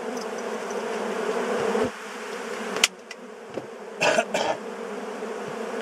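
Many honeybees buzzing around and on a beekeeper, a steady drone that eases off about two seconds in. A sharp click comes near three seconds, and a short breathy noise about four seconds in.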